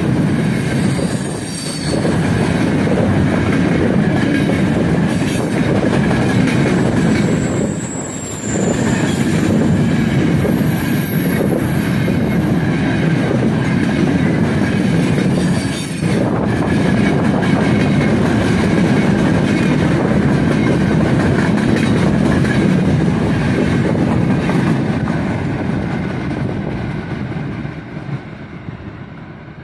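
A heavily loaded freight train's open gondola wagons roll past close by, their steel wheels running on the rails, with a few brief high wheel squeals about eight to twelve seconds in. The sound fades near the end as the last wagons go by.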